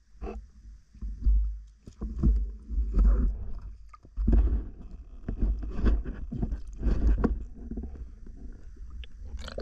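Muffled underwater rumbling and irregular knocks of water moving around a freediver's camera as he swims up with a speared Nile tilapia on the line. A sharper splash-like burst comes near the end, as he nears the surface.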